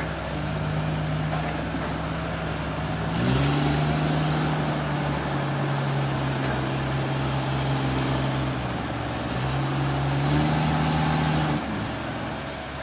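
Sawmill machinery running: a steady engine or motor hum that steps up in pitch and loudness about three seconds in, dips briefly, then drops back near the end.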